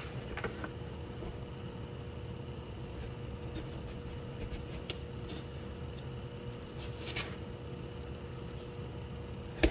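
Steady low room hum with a constant tone in it, broken by a few faint clicks and one sharper click near the end.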